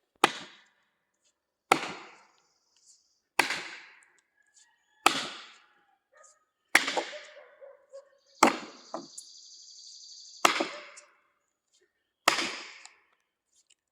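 A hammer driving splitting wedges into a big black oak log: eight sharp, ringing strikes, one every couple of seconds.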